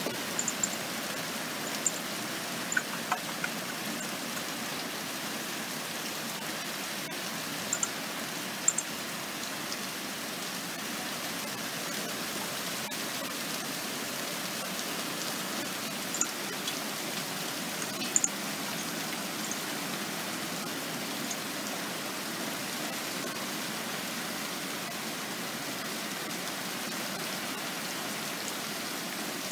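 Steady rain falling during a thunderstorm, an even hiss, broken by a few scattered sharp ticks of something striking a hard surface.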